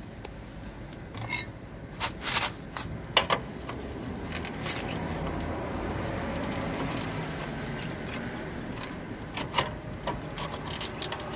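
Scattered clicks, knocks and scrapes of a metal tool and gloved hands working at a car's wheel cover, in two clusters near the start and near the end. Between them a steady rushing noise swells and fades.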